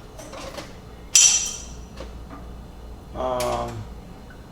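A sharp clack of a hard part of a kitchen appliance being handled or set down, ringing briefly, about a second in. A little after three seconds comes a short hummed voice sound.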